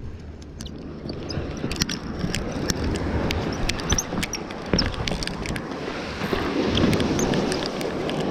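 Ocean surf and wind on the microphone, a steady rush that swells in the second half, with many sharp light clicks and knocks scattered through it.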